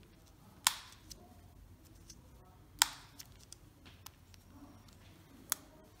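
Sharp clicks of a small flat screwdriver against the plastic shell of a Fiat Panda remote key fob as it is levered under a worn rubber button pad: three clicks about two to three seconds apart, the first two loudest, with faint ticks between.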